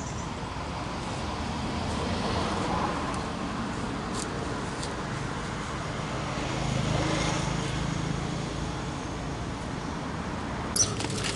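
Steady outdoor traffic noise. A low engine hum swells about six to nine seconds in, and there is a sharp click near the end.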